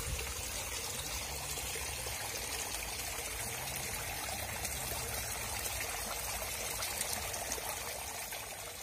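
Pumped water trickling and splashing steadily from a hydroganic installation's PVC pipes into the pond below. It fades out near the end.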